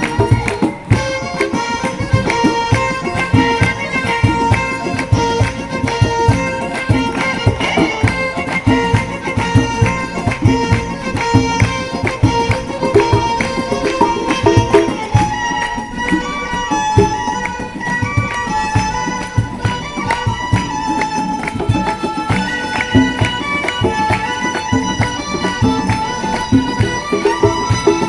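Lively traditional-style music with a steady, fast drum beat and melodic instruments, playing without a break.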